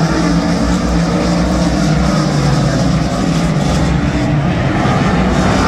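Dirt-track race car engines running hard together during a heat race, a dense, steady engine drone.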